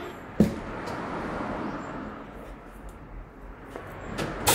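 A single knock as the tyre is handled on the tyre changer. Then low workshop noise, and right at the end a hiss of compressed air starts.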